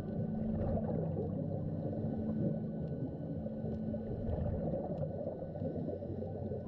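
Underwater ambience picked up by a camera below the surface: a dense low rumbling water noise with a steady low hum and some gurgling.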